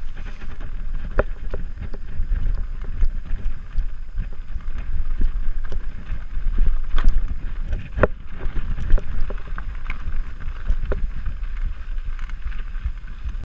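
Mountain bike descending a rough dirt trail at speed: wind buffets the camera's microphone in a steady low rumble while the bike clatters over bumps in frequent sharp knocks. The sound cuts off abruptly at the very end.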